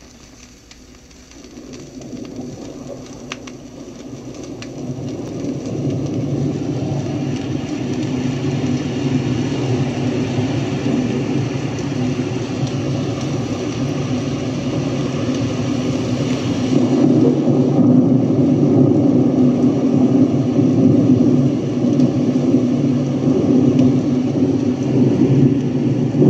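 A 45 rpm vinyl single playing on a turntable: a dense rumbling, rain-like wash swells up over the first several seconds and grows louder again about seventeen seconds in, with a few faint clicks.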